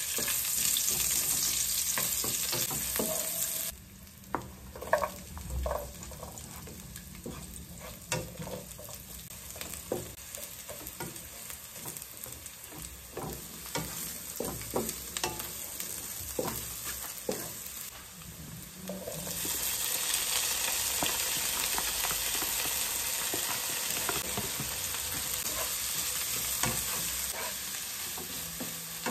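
Food sizzling in hot oil in a non-stick frying pan as chopped garlic and onion go in, with a spatula stirring and scraping against the pan. The sizzle is loud for the first few seconds, quieter through the middle where the spatula's clicks and scrapes stand out, and loud again from about two-thirds of the way through.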